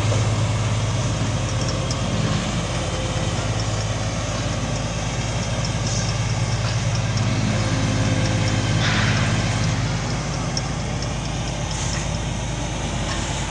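Caterpillar 14H motor grader's diesel engine running steadily with a deep drone as it works the ground, a little quieter in the last few seconds.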